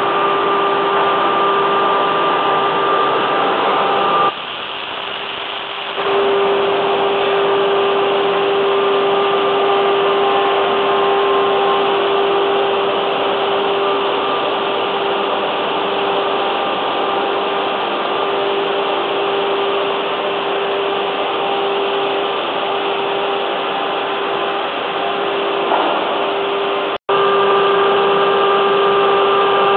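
Industrial woodworking machinery running with a loud, steady mechanical noise and a constant pitched hum. The hum drops out for about a second and a half some four seconds in, then returns. There is a momentary break in the sound near the end.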